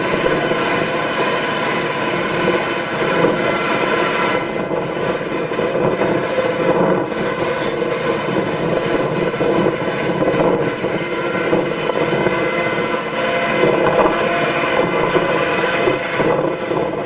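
Engine of a farm machine running steadily, a continuous dense drone with no change in speed.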